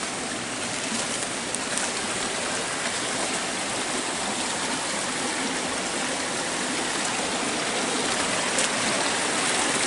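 A small rocky forest stream running shallow over stones, a steady rushing that grows gradually louder toward the end.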